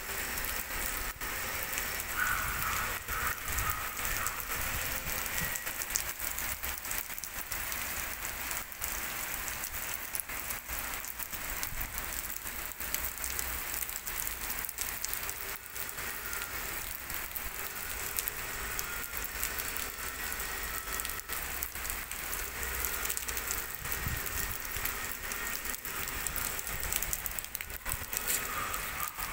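Heavy rain pouring onto a flooded street, a steady dense hiss full of fine drop hits on standing water.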